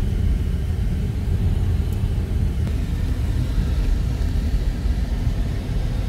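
A car driving slowly through town, heard from inside: a steady low rumble of engine and road noise.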